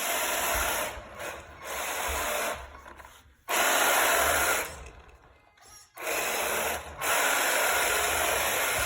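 RC truck's motor and drivetrain whirring in bursts as the throttle is pushed and let off, about five runs of one to two seconds each with short pauses between.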